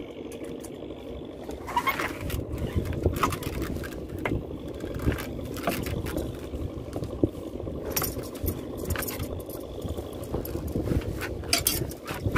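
Small boat's motor running steadily, with irregular knocks, clatter and scrapes starting about two seconds in.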